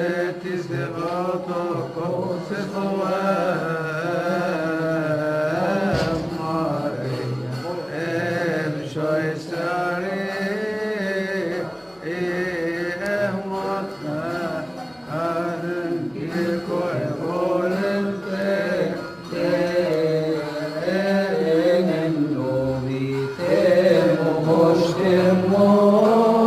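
A man's voice chanting a long melismatic passage of a Coptic church hymn, the pitch wavering and gliding on drawn-out vowels; it grows louder near the end.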